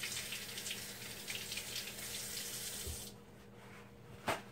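Kitchen tap running into the sink as a spatula is rinsed under it, shutting off about three seconds in. A single short knock near the end.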